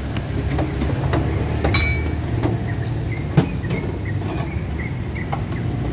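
Steady low engine rumble of street traffic close by, with scattered light clicks and one sharper knock a little past the middle.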